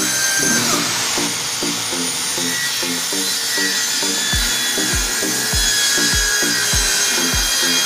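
Handheld circular saw running and cutting plywood, its pitch dropping about a second in as the blade takes the load. Background music with a steady beat plays under it and adds a deep kick drum about halfway through.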